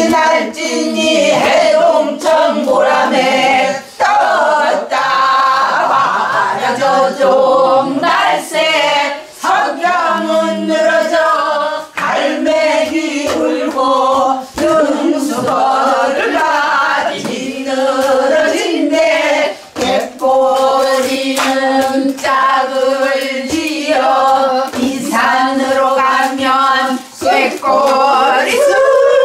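A small group singing a Korean folk song together in unison, keeping the beat by slapping their palms on small wooden tables.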